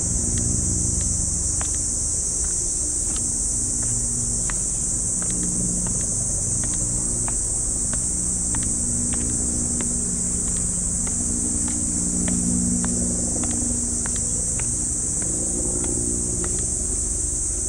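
Cicadas droning in a steady, high buzz, with light footsteps ticking about twice a second and a low traffic hum beneath.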